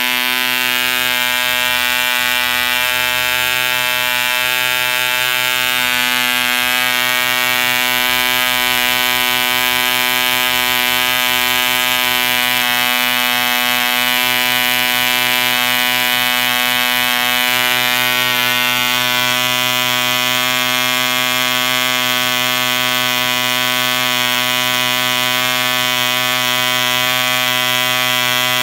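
2cc Owen Mate model diesel engine running steadily at constant speed on its test stand, a loud buzzing note that holds one pitch throughout.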